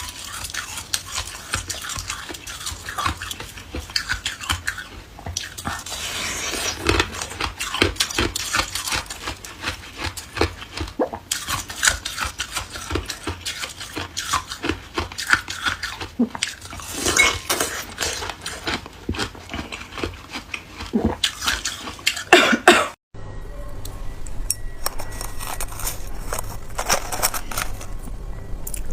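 Hard ice being handled and crunched: a dense run of sharp clinks, cracks and crackles from ice cubes knocking together and breaking, with a sudden brief dropout about two-thirds of the way through.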